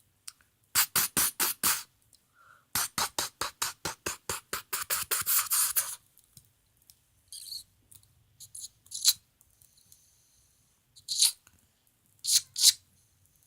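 Small plastic toy parts clicking in quick, even runs of about five or six clicks a second: a short run about a second in and a longer one lasting about three seconds. A few scattered clicks and light scrapes of handling follow.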